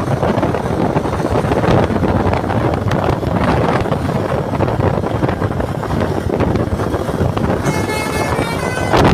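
Wind buffeting the microphone over the steady noise of a passing bus. Near the end, a bus's multi-tone basuri 'telolet' air horn sounds briefly, for about a second.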